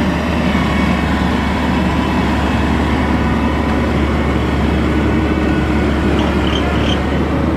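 Maxxi Bimo Xtreme rice combine harvester running steadily while harvesting, a loud continuous machine noise with a strong low engine hum.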